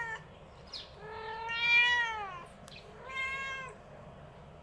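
Young male domestic cat meowing in drawn-out calls: the end of one at the start, then a long meow that rises and falls in pitch and is the loudest, then a shorter one. These are the loud calls of a tomcat coming into sexual maturity, wanting to get outside.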